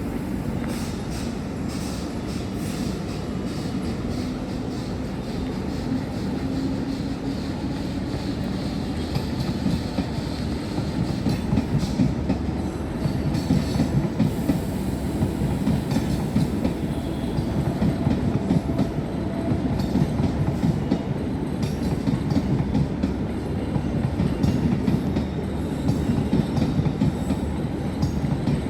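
Mumbai suburban local train running on the tracks: a steady rumble with the wheels clattering over the rail joints, growing louder and rougher about ten seconds in.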